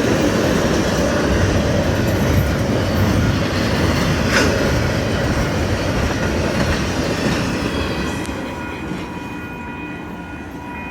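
A train rolling past on the rails, its wheels rumbling and clacking, gradually fading as it moves away. There is a sharp click about four seconds in, and faint steady high tones come in near the end.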